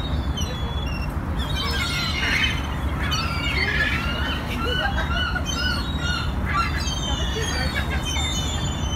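A flock of gulls calling: many short, high, overlapping cries, busiest in the middle, over a steady low rumble.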